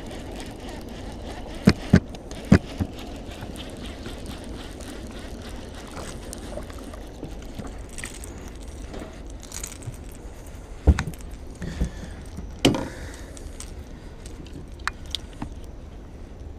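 Fishing tackle handled in a small boat: a cluster of sharp knocks and clicks about two seconds in and another around eleven to thirteen seconds, as a baitcasting reel, pliers and a small bass are handled, over a steady low rumble.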